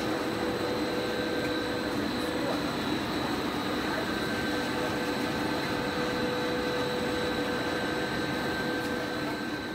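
Steady machine drone of a running plastic roofing-tile extrusion line: an even rushing noise with a constant hum and a thin high whine on top, unchanging throughout.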